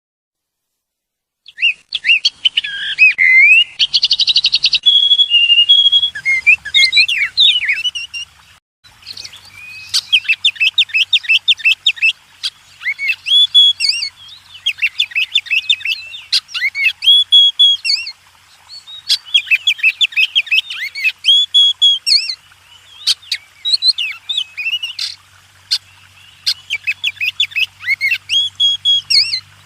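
Wild songbirds singing, with quick repeated chirping phrases delivered in bouts of a couple of seconds and short pauses between them. The song starts about a second and a half in.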